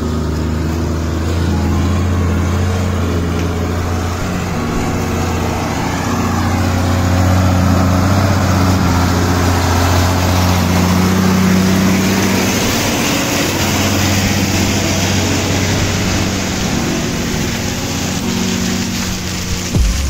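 Diesel engine of a heavy tow truck running as the truck drives by, loudest about halfway through when it is closest.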